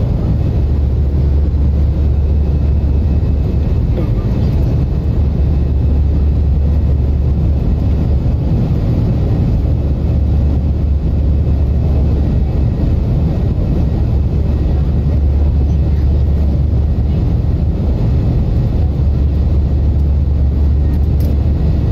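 Steady low rumble of airliner cabin noise inside an Airbus jet in flight: engine and airflow drone at a constant level.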